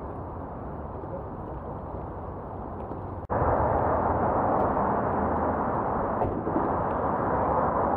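Wind rushing over the microphone of a camera on a moving bicycle, a steady rumbling noise that cuts out for an instant just over three seconds in and comes back clearly louder.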